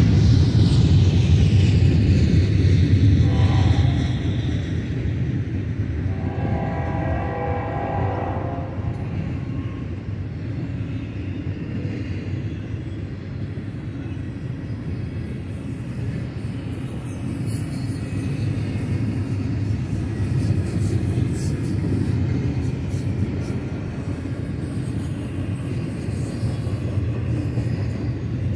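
BNSF double-stack container train rolling past, a steady rumble of railcars on the rails. A locomotive horn sounds briefly about three seconds in, then a longer blast from about six to nine seconds in.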